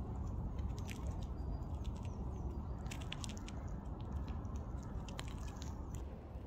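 Outdoor ambience: a steady low rumble with scattered crisp clicks and crackles, thickest around three and five seconds in.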